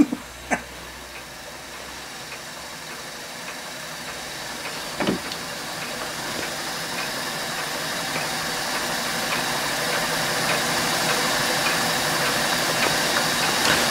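A scratch-built horizontal Hero engine (aeolipile) running under steam, its spinning brass drum giving off a steady hiss of steam jets that grows gradually louder. It is running freely, which the owner puts down to oil working into the bearings.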